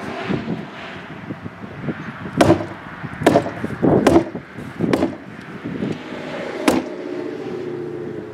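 Staples being driven into roll-roofing underlayment: six sharp strikes at uneven intervals over about four seconds, with a steady hum under the last of them.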